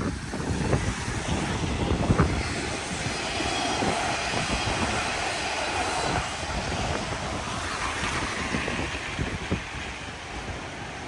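A Hanshin Railway electric train running by with a steady rumble that swells through the middle and eases near the end. Gusts of storm wind buffet the microphone at the start.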